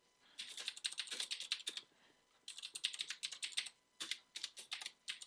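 Typing on a computer keyboard: quick runs of key clicks in three bursts, with short pauses between them.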